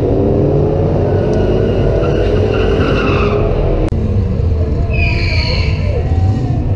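Drag-racing car engines running and revving, the pitch rising and falling, with a sudden break about four seconds in. A high squeal follows for about a second around five seconds in.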